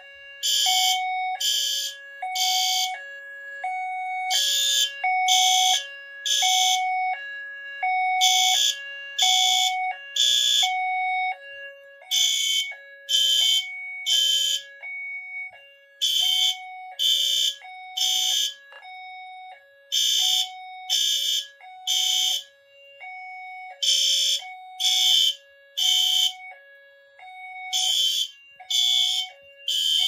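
System Sensor ceiling-mount horn strobes sounding the temporal code-3 fire alarm pattern in sync: three half-second blasts, then a pause, repeating about every four seconds. Under the horns runs a steady lower two-note tone, switching between a higher and a lower note about every half-second.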